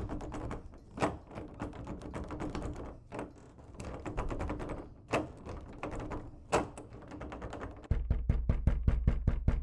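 Knocking and banging on a closed bedroom door, some blows louder than others, turning into fast pounding of about five knocks a second near the end. A low drone comes in under the pounding.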